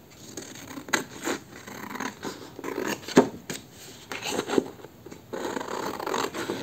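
Paper being handled for a craft project: rustling and scraping of paper with several sharp clicks, the loudest about three seconds in.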